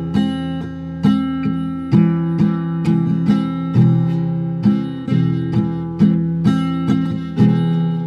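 Background music: an acoustic guitar strumming chords in a steady rhythm, about two strums a second.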